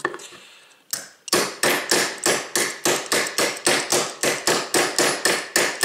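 A small hammer tapping a steel pin punch in quick, even strikes, a little over four a second, starting about a second and a half in. It is driving out the very tight extractor pin of a Beretta 92 pistol slide.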